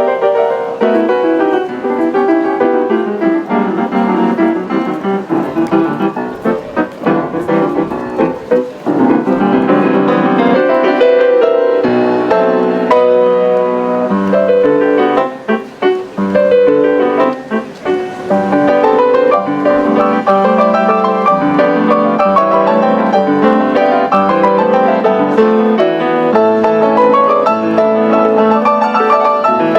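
A grand piano being played: a continuous run of chords and melody, with a few brief breaks between phrases about halfway through.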